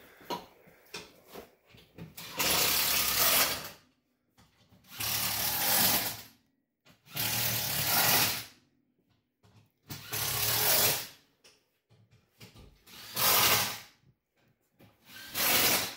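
Cordless power driver run in six short bursts of about a second each, driving screws or bolts home.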